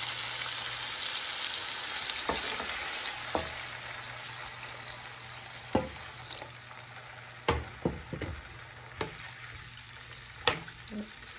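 Vegetables sizzling in a hot nonstick wok, the sizzle dying down as chicken broth is poured in, with several sharp knocks of a utensil against the pan as it is stirred.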